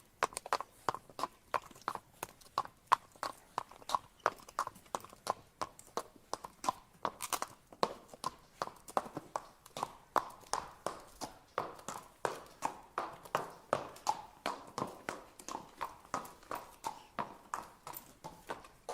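A horse walking, its hooves clip-clopping in a steady rhythm of about three strikes a second.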